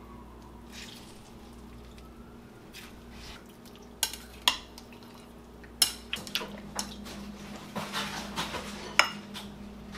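Fish fillets being mixed by hand in a marinade in a ceramic bowl. Faint wet handling at first, then from about four seconds in a run of sharp clinks and knocks against the bowl.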